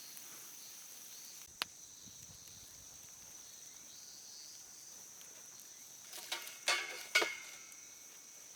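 Cooking gear on a campfire griddle: a sharp click about a second and a half in, then a few quick knocks and clinks near the end, the last one ringing briefly, as starch slurry is being added. A faint steady high hiss, like insects, runs underneath.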